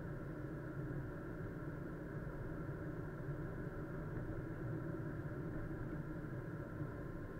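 Car running steadily, a low even hum of engine and road noise, as picked up by a dashcam microphone, muffled with no high sounds.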